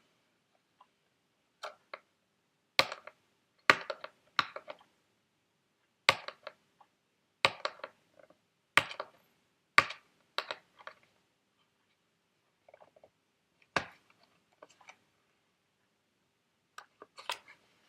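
Irregular sharp clicks and taps of hard plastic packaging being handled, some single and some in quick clusters, with a quieter gap a little past the middle.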